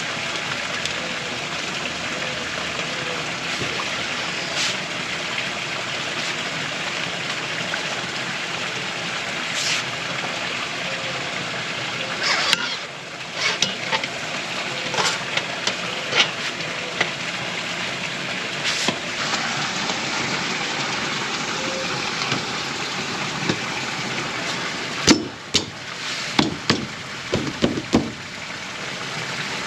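Steady rain-like hiss with scattered sharp clicks and knocks, a quick cluster of them near the end, as a folding camp cot is unfolded and set up.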